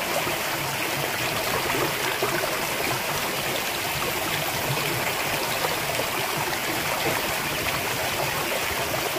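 Running water flowing steadily: an even, unbroken rush with no separate splashes.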